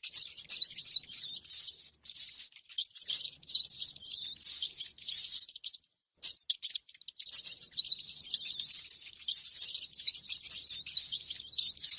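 Rats squeaking: a dense run of rapid, high-pitched squeaks and chirps, with brief breaks about two and six seconds in.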